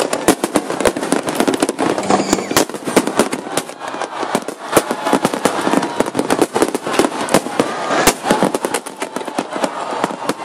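Aerial fireworks bursting in a dense, continuous barrage of many bangs and crackles a second.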